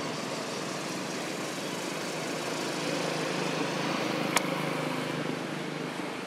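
Outdoor traffic noise: a motor vehicle's engine hum swells and fades as it passes, over a steady background hiss. A single sharp click just past the middle.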